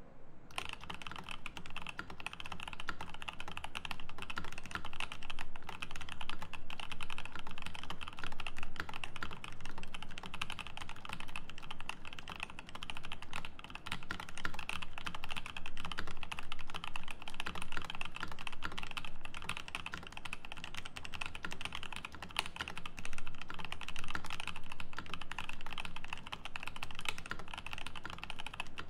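Continuous typing on a Rama M65-B mechanical keyboard with a brass plate, lubed Paco switches and GMK Classic Blue keycaps: a steady, dense stream of keystrokes.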